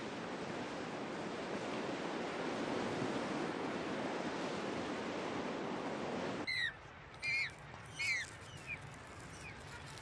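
Ocean surf washing steadily. About two-thirds of the way through, the surf sound drops away abruptly and a string of short, falling bird calls follows, the first three loudest and the rest fainter.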